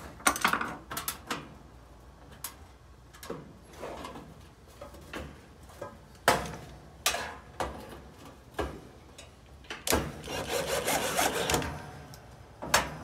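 Hands working at a dryer's sheet-metal heating-element housing and its screws: scattered clicks, knocks and rubbing, with a denser run of rapid clicks about ten seconds in.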